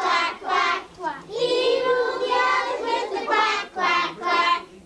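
Young children singing a song together, with a few held notes in the middle; the singing stops just before the end.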